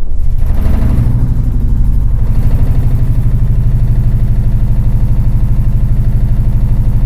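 Engine running steadily, loud and low, with a fast even pulse from its firing; it starts and stops abruptly, like a played sound effect.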